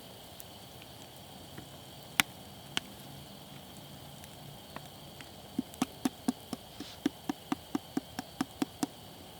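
Steady high chirring of grass insects, over which a knife chops on a cutting board: two single sharp knocks, then a quick regular run of about a dozen chops, roughly four a second, in the second half.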